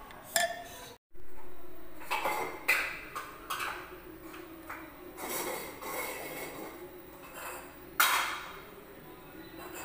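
Kitchen utensils and a cooking pot knocking and clinking several times, with the loudest clank near the end, over a faint steady hum.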